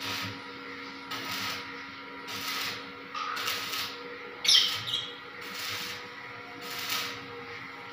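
Electric arc welding on steel rod: the arc crackles and hisses in short bursts about once a second, the loudest about halfway through, over a steady electrical hum.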